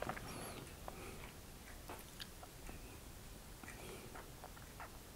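Quiet room tone with a few faint, scattered soft clicks.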